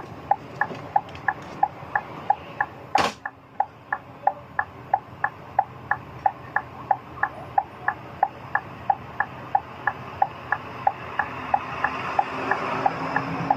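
Electronic beeping, about three short beeps a second, keeping an even rhythm, over the low hum of a bus engine that rises and grows louder near the end. There is one sharp knock about three seconds in.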